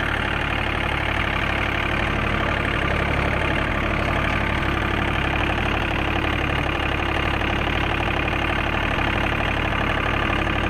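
John Deere 3036EN compact tractor's diesel engine running steadily under load, pulling a cultivator through the soil.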